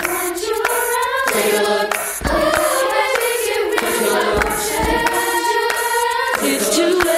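A middle-school show choir singing together, holding long notes between shorter sung phrases.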